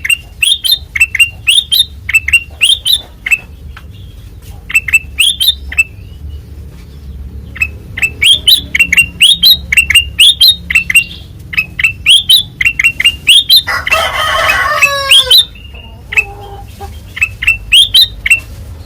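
A kutilang emas (a bulbul) singing in quick bursts of sharp, clear chirps, with a short pause about six seconds in. About fourteen seconds in, a louder, harsher call of about a second and a half cuts across.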